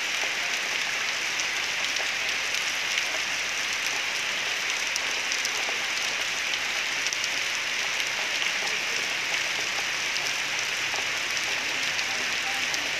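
A steady, even hiss with scattered faint ticks.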